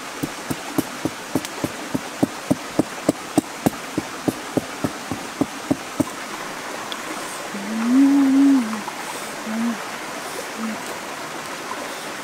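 A curved hand blade hacking at a thin green stalk: quick sharp chops about three a second for some six seconds, then they stop. About eight seconds in comes a single low call that rises and falls, followed by a few short low sounds, over a steady rushing hiss like a stream.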